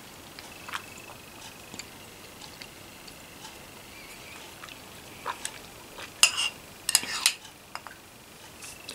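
Metal spoon clinking and scraping against a bowl of soup: a few light clicks, then two louder clusters of clinks about six and seven seconds in.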